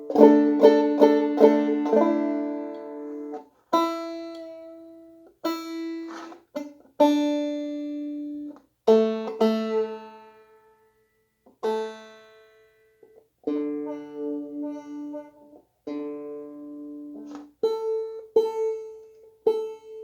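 Five-string banjo being retuned after its head was tightened: a few strummed chords, then single strings plucked one at a time with pauses between, and more chords near the end.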